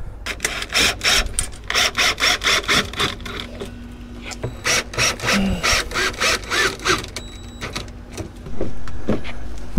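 Cordless drill driving screws through the battery's metal mounting tabs into an oak board, the motor running in short bursts and then in a longer run near the end.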